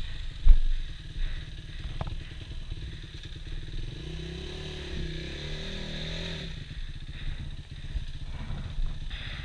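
Enduro motorcycle engine running, its revs climbing about four seconds in and dropping back about two and a half seconds later. A sharp knock comes about half a second in, with another about two seconds in.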